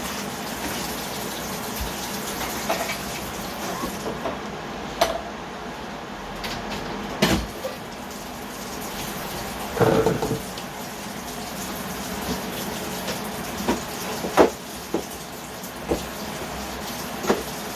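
A steady watery hiss of kitchen cooking, with a few sharp clinks and knocks of pots and utensils, the loudest about fourteen seconds in.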